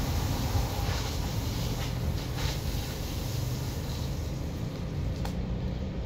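Steady outdoor background noise: a low rumble under an even hiss, with a faint tick about five seconds in.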